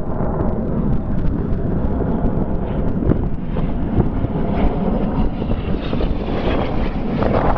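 Jet engine rumble of a Red Arrows BAE Hawk, a single-turbofan trainer, flying past in a smoke-on display run, with wind buffeting the microphone.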